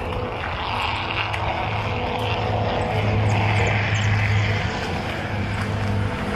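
A steady engine drone that grows louder around the middle, over a rough background hiss.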